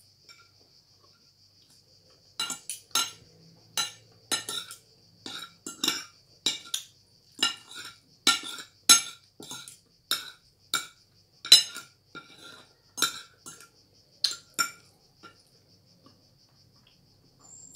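A metal spoon and fork clinking and scraping against a ceramic plate as food is scooped up. The sharp, irregular strikes come one to two a second, start a couple of seconds in and stop a few seconds before the end.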